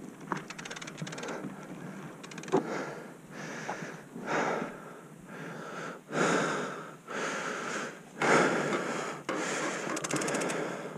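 A mountain biker breathing hard, about six loud wheezing breaths roughly a second apart through the second half, the sound of someone out of breath after a hill climb. About a second in, a quick run of clicks from the fat bike's drivetrain as the dropped chain is put back on.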